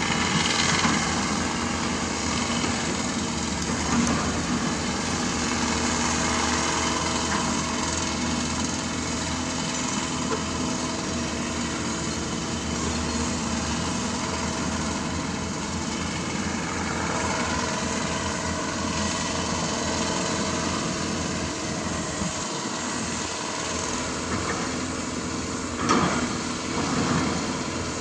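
Diesel engines of hydraulic crawler excavators (a Hyundai Robex 210LC and a Doosan DX225LCA) running steadily while digging and loading rock, with occasional knocks of rock. A louder clatter of rock comes near the end.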